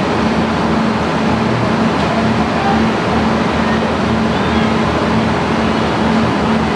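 ERF E10-325 lorry's diesel engine idling steadily, with a regular throb about twice a second.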